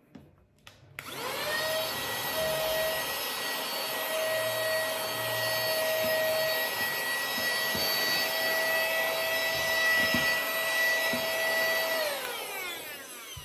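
Motor of a Meudeen cordless handheld vacuum and air duster (110,000 rpm) switched on: a rising whine as it spins up, a steady high whine while it runs, then a falling whine as it is switched off and spins down.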